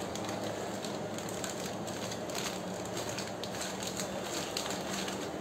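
Thin plastic sheet crinkling and rustling in a series of faint, light crackles as hands roll and press the candy dough inside it, over a steady low background hum.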